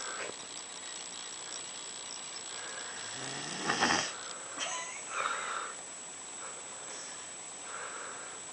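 A sleeper snoring: one loud snore about three and a half seconds in, rising in pitch, followed by a few softer snuffling breaths.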